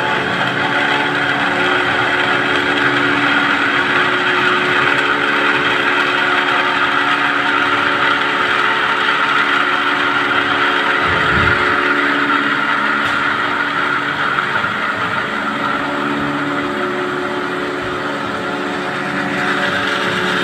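Aviva 1.5 hp electric motor pump running steadily, pumping against a shut ball valve as the line pressure builds toward about 35.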